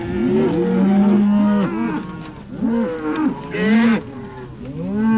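Cattle mooing: several overlapping moos. The first is a long, steady call about a second in, followed by shorter calls that rise and fall in pitch.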